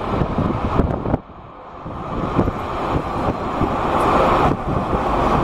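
Jet engines of a Boeing 777-200ER rolling along the runway, their noise growing louder from about two seconds in, with wind buffeting the microphone.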